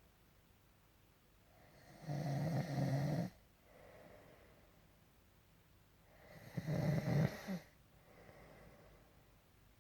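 A man snoring in his sleep: two loud snores about four and a half seconds apart, each lasting about a second, with quieter breathing between them.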